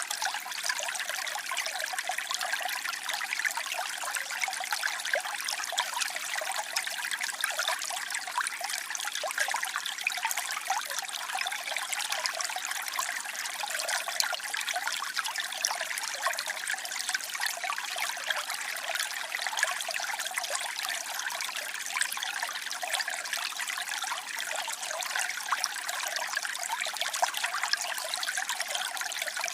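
Waterfall: water falling and splashing in a steady, unbroken hiss, light and bright with fine splashes and little deep rumble.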